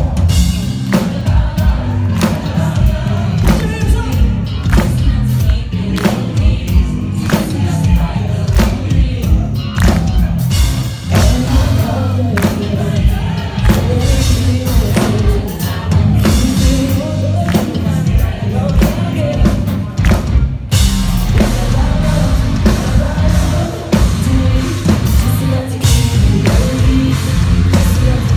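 Live metalcore band performing loudly, with drums, distorted guitars and sung vocals, heard from within the crowd. About twenty seconds in there is a short break, then the band comes back in with heavier low end.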